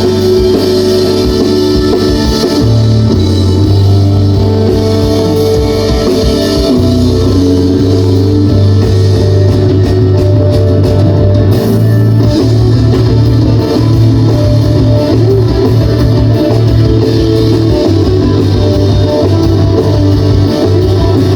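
Rock band playing live, loud and steady: guitars over a strong bass line and a drum kit, with no singing.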